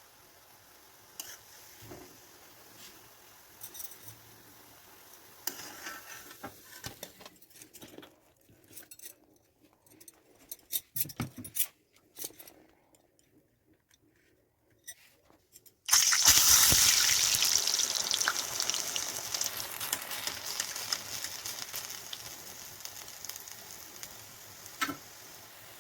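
Faint scattered clicks and handling noises, then about two-thirds of the way through a sudden loud sizzle as medu vada batter goes into hot oil, slowly fading over the following seconds.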